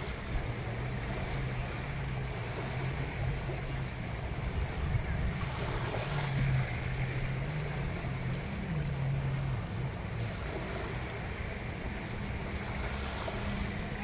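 Small sea waves lapping and washing up the sand, with a louder swash about six seconds in and another near the end, over a low steady hum.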